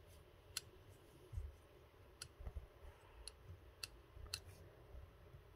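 Faint, scattered clicks and a couple of soft low taps from a bobbin and tying thread being handled at a fly-tying vise while rubber legs are tied onto a streamer.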